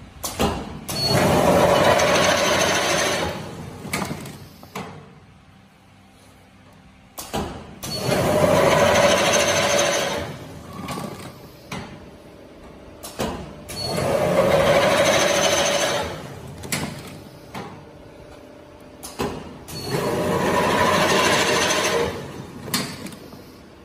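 Semi-automatic paper tube cutting machine slicing long paper tubes into short lengths with its row of circular blades: four loud cutting passes of about three seconds each, roughly six seconds apart, each with a steady whine. Between the passes come knocks and clicks as the next tube is loaded.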